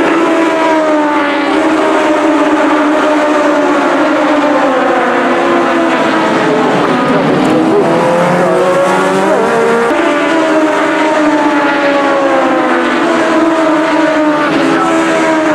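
Engines of a pack of Legends racing cars (Yamaha motorcycle engines) running hard together: several engine notes overlap, dipping in pitch about halfway through and then climbing again.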